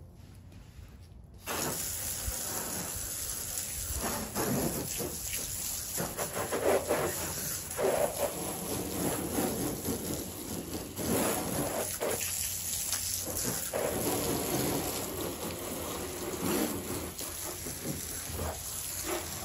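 Garden hose spray nozzle jetting water onto a car's body panels and the wet concrete driveway. The spray starts suddenly about a second and a half in and runs on, growing stronger and weaker as the jet moves along the car.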